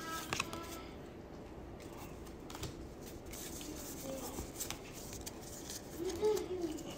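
Pokémon trading cards being handled: cards sliding and flicking against each other as the stack is moved between the hands, with a few light clicks and rustles.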